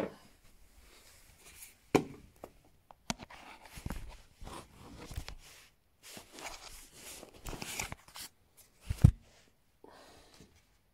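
Close handling noise as a round wireless charging pad and its cable are picked up and moved about right by the microphone: rustles and several knocks, the loudest a thump about nine seconds in.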